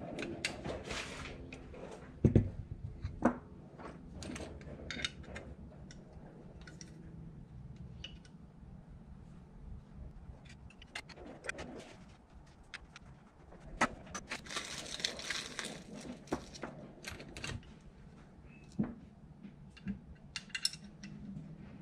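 Small metal parts and hand tools clinking, tapping and scraping as throttle bodies are assembled by hand. Two sharp knocks come a couple of seconds in, and a longer scraping rattle comes about two-thirds of the way through.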